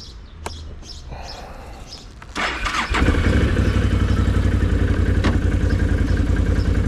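Quad bike engine started about two and a half seconds in: a short burst of cranking, then it catches and settles into a steady idle with an even low throb.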